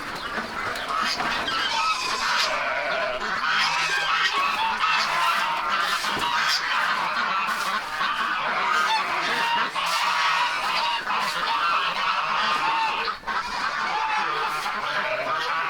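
A dense chorus of farmyard poultry calling over one another without a break.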